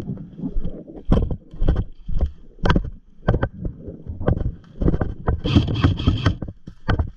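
Footsteps thudding irregularly on dirt and grass as a player moves across the field, with gear rattling and wind brushing over a body-worn camera's microphone.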